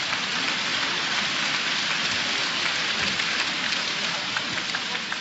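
Arena crowd applauding at the end of a boxing round: a steady wash of clapping that eases off slightly near the end.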